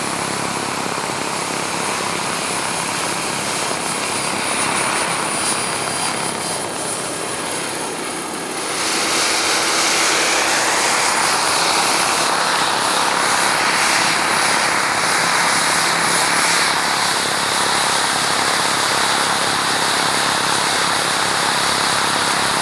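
Radio-control model jet's turbine engine running in flight, a steady high whine over a loud rushing noise that grows louder about nine seconds in.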